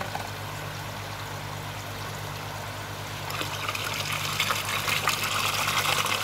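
Water starting to spout from a pond pump's outlet pipe and splash back into the pond, coming in about three seconds in and growing louder as the pump speeds up.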